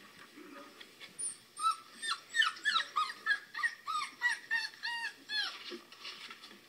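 Newborn puppies crying, played through a laptop speaker: a quick run of high whimpering cries, about three a second, starting about a second in and stopping near the end.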